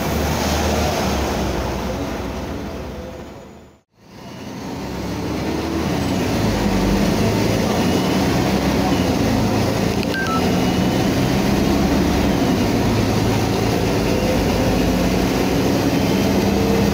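Mercedes-Benz OM 457 L inline-six diesel of an O500UA city bus running with a free-flowing (escape libre) exhaust, heard from inside the cabin. The sound fades out and back in about four seconds in, then the engine note climbs slowly as the bus pulls.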